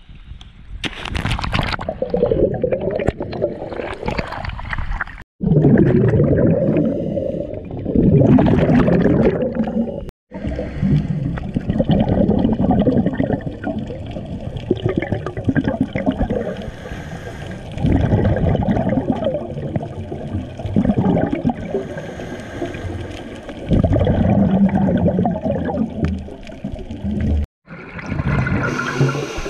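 A diver's splash entering the sea about a second in, then muffled underwater gurgling and rushing of scuba regulator exhaust bubbles in irregular loud surges. The sound cuts out abruptly three times.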